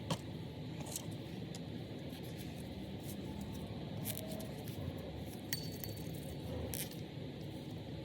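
A few sharp clicks and light clinks of small metal parts being handled, over a steady background hiss.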